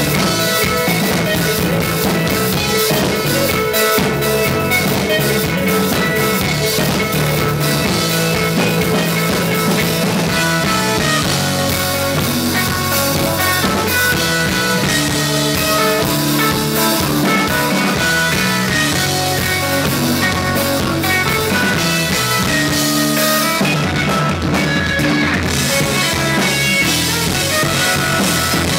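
Live three-piece instrumental rock band playing: electric guitar, electric bass and a Yamaha drum kit, loud and dense, with the cymbals dropping out for a couple of seconds near the end.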